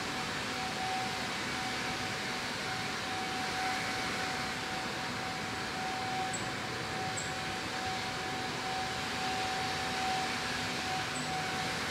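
Steady hum and hiss with one constant mid-pitched tone. Three faint, very short high chirps come through, two around the middle and one near the end.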